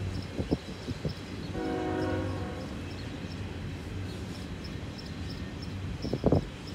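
Autorack freight cars rolling past with steady wheel-on-rail noise and a few sharp thumps of wheels over rail joints, loudest near the end. About a second and a half in, a locomotive horn sounds a chord for about a second.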